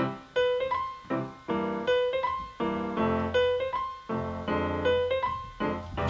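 Piano music: a repeating figure of struck notes, each fading before the next.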